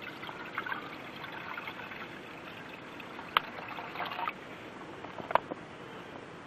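Water trickling as it is poured into a small metal camp cooking pot, with a few sharp clinks of metal cookware.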